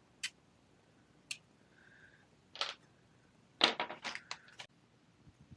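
Small hard RC truck parts clicking and clattering as they are handled and set down. A few single clicks come first, then a quick cluster of clatters about three and a half seconds in.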